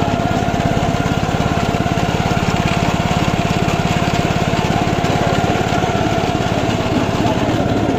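An engine running steadily at an even speed, with a fast regular pulse and a thin steady whine over it.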